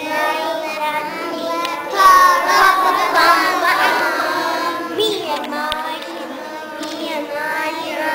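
A group of young children singing together, their voices overlapping, loudest about two seconds in.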